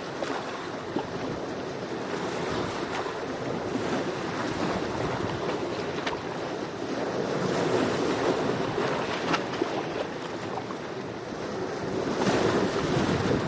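Sea waves washing onto the shore in a continuous surf, swelling twice, about halfway through and near the end, with brief fizzing crackles of foam.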